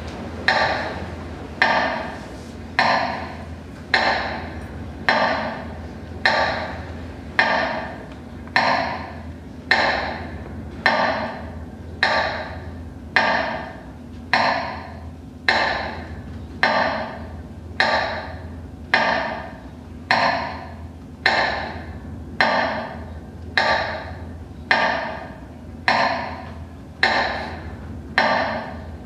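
Metronome beating slowly and evenly, about once a second, each stroke ringing briefly, over a steady low hum: the beat that marks a minute of silence for the war dead.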